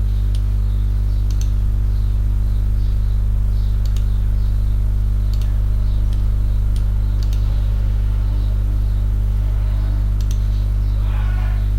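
Steady electrical mains hum with its overtones, with faint computer-mouse clicks scattered through as edges are selected in the CAD program.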